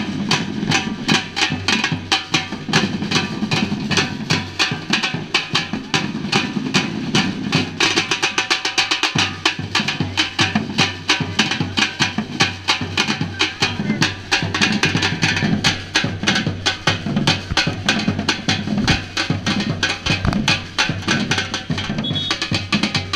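Samba-reggae drum ensemble playing a fast, steady rhythm: deep bass drums under dense, sharp drum strikes.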